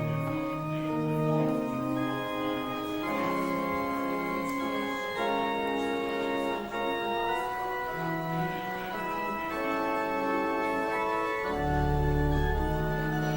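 Organ playing slow, sustained chords, the notes changing every second or so, with a deep bass pedal note coming in near the end.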